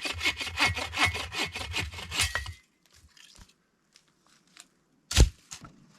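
Hand saw cutting through wood with quick, even strokes, about six a second, that stop after about two and a half seconds. A single sharp knock comes near the end.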